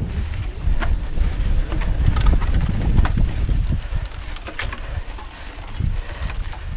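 Mountain bike descending rocky dirt singletrack, heard from a camera mounted on the rider: wind buffeting the microphone over tyre rumble, with a few sharp clacks as the bike rattles over rocks.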